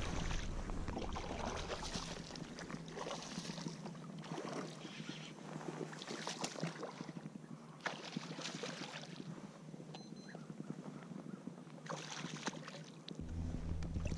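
Water sloshing and splashing around a kayak, in uneven surges every second or two.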